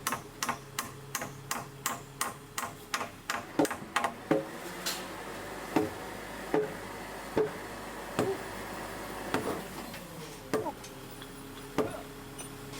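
Hammer strikes on timber as a frame is fitted together: a quick, even run of sharp taps, then from about three and a half seconds in slower, heavier blows roughly once a second, each with a short ring.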